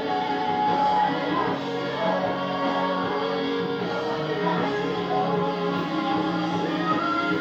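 Worship music playing steadily, with singing over held notes.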